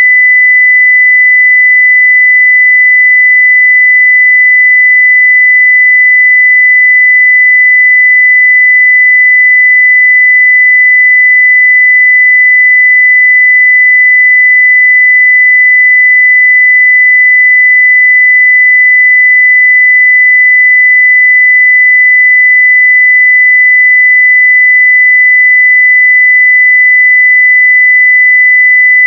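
A pure 2 kHz sine-wave test tone at full level (0 dB), held steady and unbroken.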